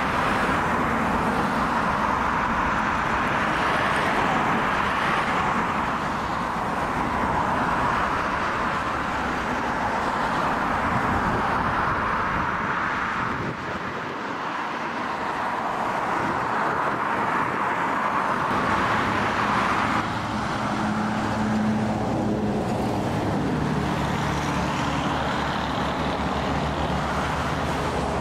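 Twin-engine jet airliner climbing away after take-off, its turbofan engines giving a steady, loud rush of jet noise. A low steady hum joins in over the last several seconds.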